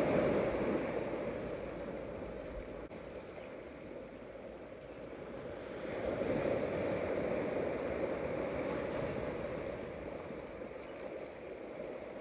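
Ocean surf washing on a beach, swelling near the start and again about six seconds in.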